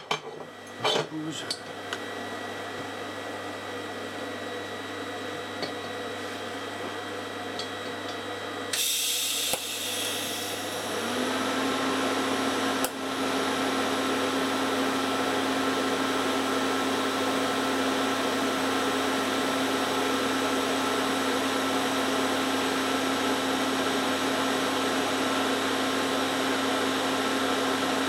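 TIG welding arc on stainless steel: after a few knocks and a short burst of hiss, the arc strikes about eleven seconds in and then runs as a steady, even tone.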